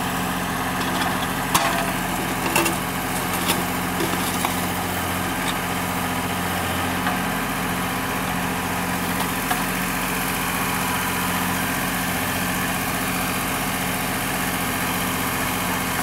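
ACE 550 NG tractor's diesel engine running steadily while powering a rear-mounted backhoe digging soil, with a few sharp knocks in the first few seconds.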